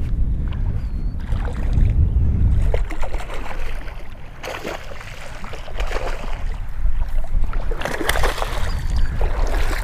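Wind buffeting the microphone, then water splashing as a hooked bass thrashes at the surface and is lifted from the water.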